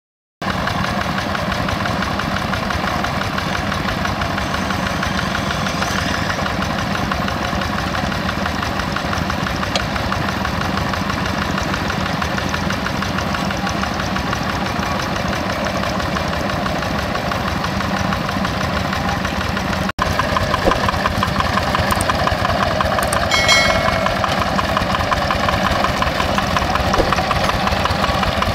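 The Yanmar single-cylinder diesel engine of a two-wheel hand tractor runs steadily under load while the tractor works a flooded rice paddy. After a brief break about two-thirds of the way through, the engine is a little louder.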